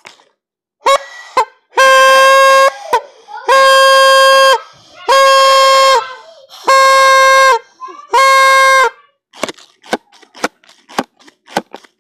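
Party horn blown in five long steady blasts, each about a second, all on one buzzing pitch. Near the end come a few short clicks and knocks.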